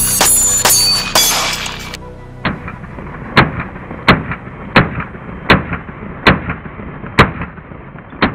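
An electronic music track, busy and loud for about two seconds. It then thins to a steady hiss punctuated by about eight sharp, evenly spaced hits, roughly one every three-quarters of a second.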